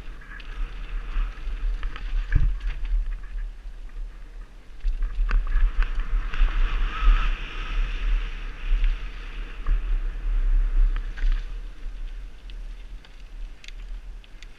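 Mountain bike descending a dirt trail at speed, heard through a helmet-mounted action camera: wind rumbling on the microphone and tyres hissing over the dirt, getting louder for a few seconds in the middle. Scattered clicks and rattles from the bike run throughout, with one heavy thump about two and a half seconds in.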